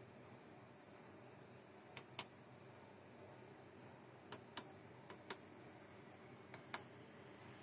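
Push-buttons on the front panel of a Schneider Electric Sepam protection relay pressed four times, each press a quick pair of light clicks, as the relay is cleared and reset after a trip.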